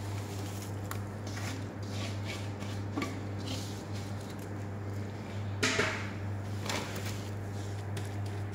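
Crumbly semolina dough tipped from a steel bowl onto a plastic-lined baking tray and pressed out by gloved hands: soft scrapes, rustles and a few small knocks, with two louder rustles a little past halfway, over a steady low hum.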